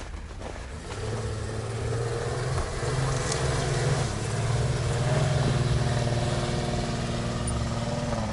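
SUV engine pulling steadily under load on a hill climb, its drone swelling about a second in and then holding, over a steady hiss.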